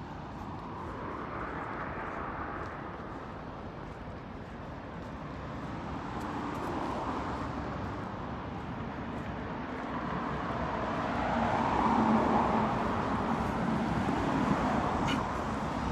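Road traffic: cars passing one after another, their engine and tyre noise swelling and fading in turn. The loudest pass comes about twelve seconds in.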